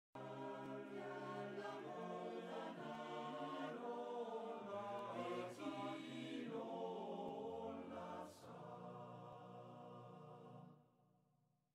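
Choir singing slow, sustained chords as background music, fading out near the end.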